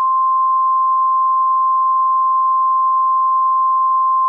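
A single steady electronic sine tone just above 1 kHz, starting abruptly out of silence: the alert tone of an Emergency Alert System broadcast, sounding ahead of the next emergency message.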